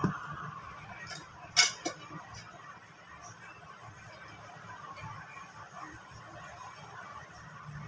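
Small tools and plastic phone parts being handled on a workbench: a sharp click about a second and a half in, with a lighter one just after, over a faint steady background noise.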